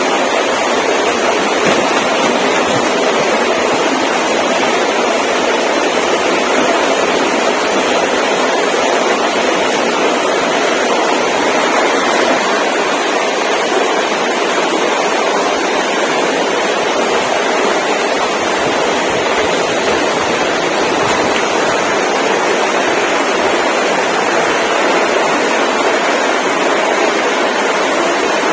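Loud, steady rushing noise that stays even throughout, with little deep bass.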